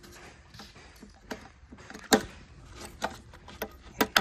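Scattered sharp clicks and knocks of a plastic toilet flapper being handled and fitted inside an empty toilet tank, about five in all, the loudest about two seconds in.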